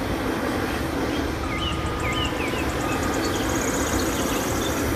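Caterpillar 980K wheel loader's diesel engine running steadily as it works a pile of grain, with faint bird chirps behind it.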